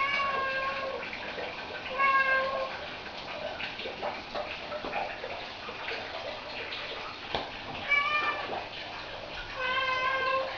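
Domestic cat meowing four times, each meow a short steady note, with faint rustles and clicks in between.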